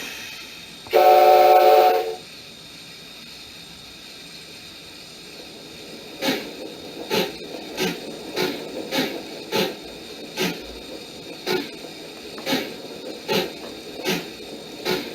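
KATO sound box playing D51 steam locomotive sounds: one loud steam whistle blast of about a second, a quiet hiss of steam, then exhaust chuffs starting about six seconds in, slow at first and gradually quickening as the locomotive pulls away.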